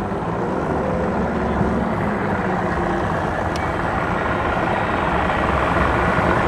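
Robalo boat's single outboard motor running at low speed, a steady low rumble that slowly grows louder as the boat comes in.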